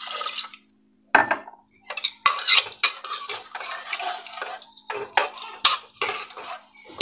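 Water poured from a mug into an aluminium pressure cooker of curry, with about a second of splashing. Then a steel ladle stirs the curry, scraping and clinking irregularly against the pot's sides and bottom.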